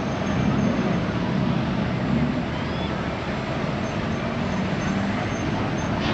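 Street traffic of cars and trucks: steady engine and road noise from vehicles running on the street.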